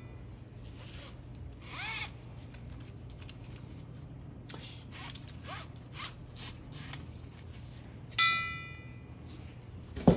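Nylon webbing strap rustling and rubbing as it is threaded on a scuba tank, with a short squeak about two seconds in. About eight seconds in the metal tank rings briefly after a knock, and a sharp click comes just before the end.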